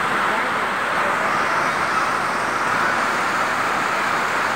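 Heavy tropical rain falling in a steady, even hiss.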